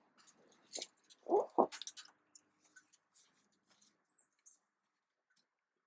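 Scattered light clicks, ticks and scrapes of tools and parts being handled, with two louder short knocks about a second and a half in.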